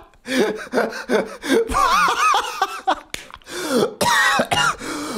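A man laughing hard without words, a wheezing, cough-like laugh in two bouts with a short break about three seconds in.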